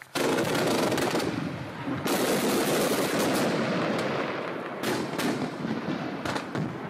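Celtic Fireworks 'Brexit' 25-shot, 25 mm fan-firing barrage cake going off: a fast, continuous rattle of launches and bursting shots in quick succession, with a few sharper bangs. It thins out over the last second or two as the cake finishes.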